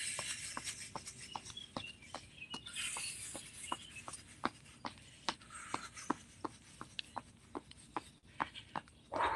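Person hopping on the spot, feet landing in a steady rhythm of light thuds about two and a half times a second, with a few patches of rustling hiss.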